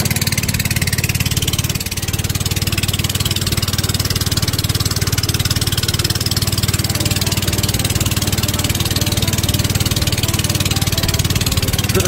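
Engine of a wooden long-tail river boat running steadily under way, a loud, even low drone with water and wind noise over it.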